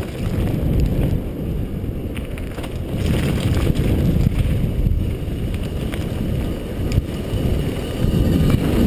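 Mountain bike tyres rumbling over a dirt trail at speed, with wind buffeting the helmet-mounted camera's microphone, heard as a loud, steady low roar. A few sharp knocks come from the bike hitting bumps.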